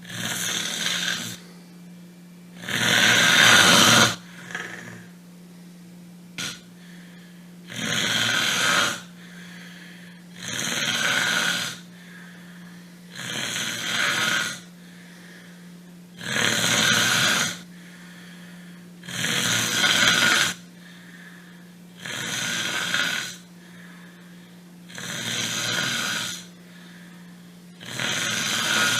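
Snoring: a rasping breath about every three seconds, each lasting a second or so, over a steady low hum. There is a sharp click once, a little after six seconds.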